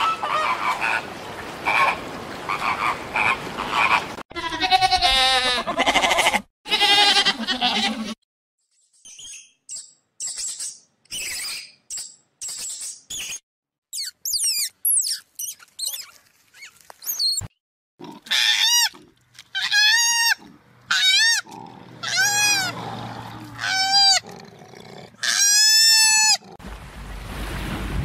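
Flamingo flock honking and chattering, followed by a run of short chirps and squeaks, then a series of loud squeaky calls, each rising and then falling in pitch.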